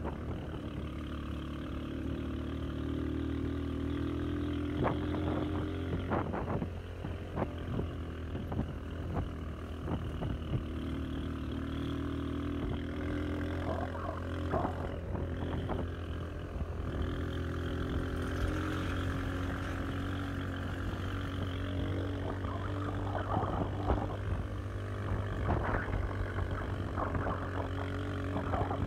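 A vehicle engine running steadily on a rough gravel road, with scattered knocks and rattles from the bumpy ride.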